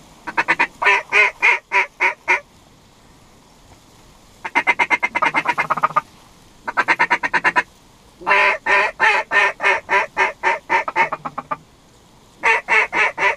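Duck call blown in rapid runs of loud quacks: five runs, each one to three seconds long, with short pauses between.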